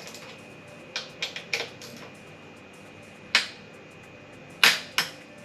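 Sharp, separate clicks from a small hand wrench tightening the handlebar riser clamp bolts: a few close together about a second in, then single louder clicks later on.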